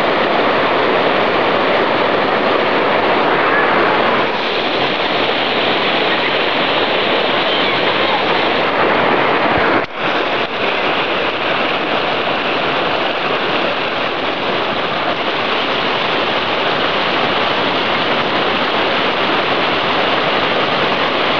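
Shallow river rapids rushing over rocks: a steady, loud rush of water, briefly dipping a little under halfway through.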